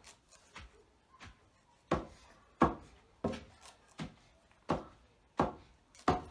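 Long wooden pestle pounding leafy greens in a carved wooden mortar: a steady rhythm of dull thuds, about three every two seconds, the first few strokes lighter.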